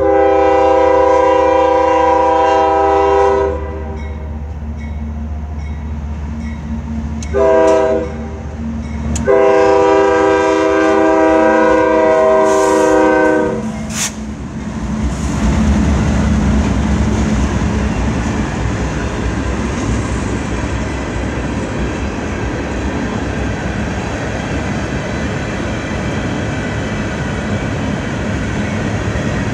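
CSX diesel freight locomotive horn sounding a long blast, a short blast and another long blast. The locomotive then passes close with its engine running, followed by a string of phosphate hopper cars rolling by with steady wheel and rail noise and clickety-clack.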